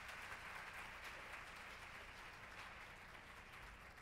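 Audience applauding, faint and even, slowly dying down toward the end.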